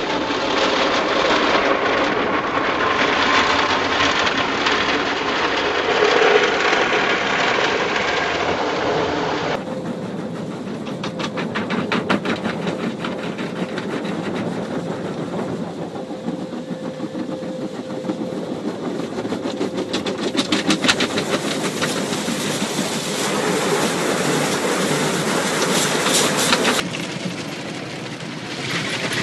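Automatic car wash heard from inside the car: water jets and wash brushes beating on the bodywork and windows, a steady loud rush with a rapid clatter. The sound changes abruptly about ten seconds in and again near the end.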